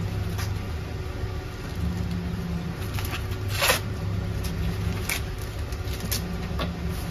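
Corn husks tearing and snapping as an ear of corn is shucked by hand: a few short, crisp rips, the loudest about three and a half seconds in. A steady low hum runs underneath.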